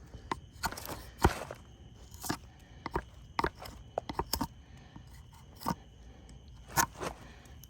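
Drawknife shaving wood: short scraping strokes and sharp knocks and cracks at irregular intervals, the freshly sharpened blade catching rather than cutting smoothly.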